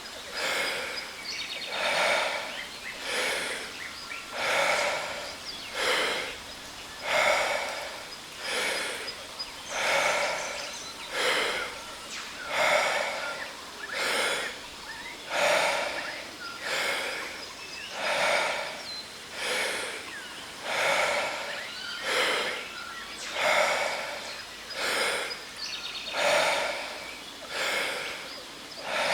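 Deep, forceful breaths in and out through the mouth at a steady even pace, a loud breath about every second and a half, pacing Wim Hof power breathing. A steady waterfall hiss runs underneath.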